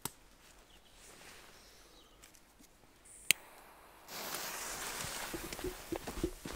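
A single sharp click about three seconds in, then a firecracker fuse hissing steadily from about four seconds in, with quick footsteps thudding through leaf litter and undergrowth in the last second or so.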